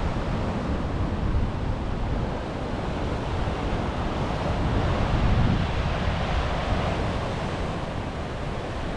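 Ocean surf washing ashore with wind buffeting the microphone, a steady rush that swells slightly midway.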